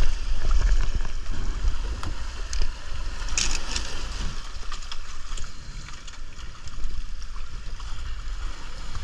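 Surf washing and splashing over a rocky shoreline, with water and wind buffeting the body-worn camera's microphone as a low rumble. A few sharp knocks come about two to four seconds in.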